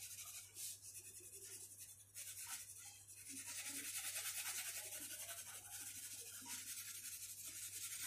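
Orange crayon rubbed rapidly back and forth on paper, a faint steady scratchy shading sound as an area of the drawing is filled in with colour.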